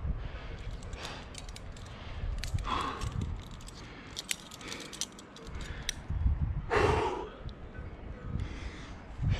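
A climber breathing hard, with two loud exhales about three seconds and seven seconds in, and scattered light clinks of the carabiners and cams on his harness rack.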